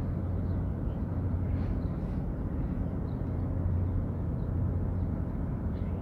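Steady low engine rumble from a large container ship under way, with a few faint high chirps now and then.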